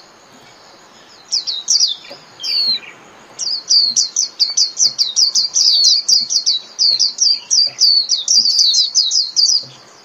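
White-eye singing its rapid twittering 'líu' song: a few high notes, then a long fast run of high, sharply falling notes, several a second, which breaks off just before the end.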